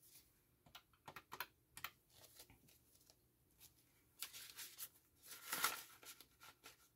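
Soft rustling and crinkling of Canadian polymer banknotes and a clear plastic binder envelope being handled, with a scatter of faint clicks and one louder rustle about five and a half seconds in.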